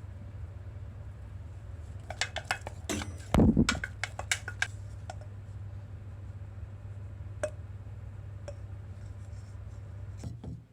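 Kitchen utensils clinking and knocking against dishes in a quick cluster about two seconds in, with one heavier knock in the middle, over a steady low hum.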